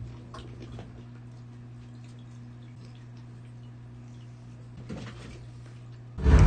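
A steady low hum with scattered faint ticks, a soft knock about five seconds in, and a loud low thump near the end.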